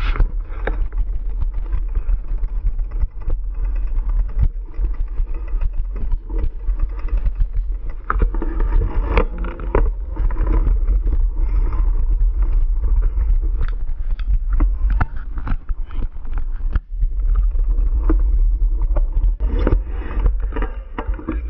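Mountain bike rolling over a rough dirt trail, with a constant low wind rumble on the action camera's microphone and frequent short rattles and knocks from the bike and camera mount over the bumps.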